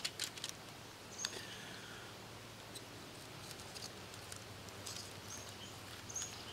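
A knife clicking and scraping as grilled chicken thighs are cut open, mostly in the first second, then faint occasional ticks. Short high bird chirps sound now and then.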